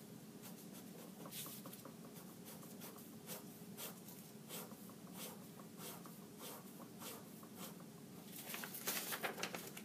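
A pen scratching across paper in quick, uneven scribbling strokes, with a fast flurry of strokes near the end.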